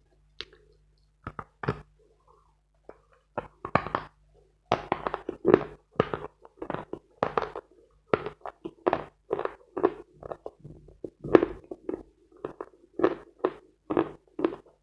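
Dense dry Khrapovsky chalk being bitten and chewed: a few separate crisp crunches, then from about five seconds in a steady run of crunches, about two a second.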